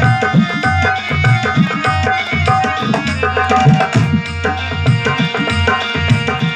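Instrumental interlude of a Hindi devotional song: a dholak drum beats a steady, busy rhythm under a keyboard melody of held notes.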